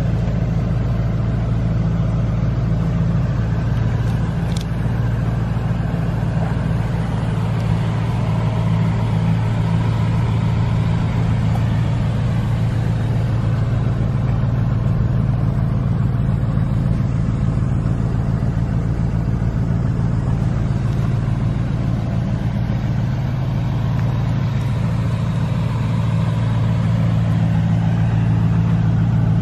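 Porsche Panamera Turbo's 4.0-litre twin-turbo V8 idling with a steady low hum.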